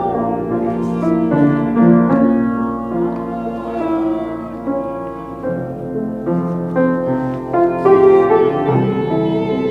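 Piano music: held chords and notes that change every second or so.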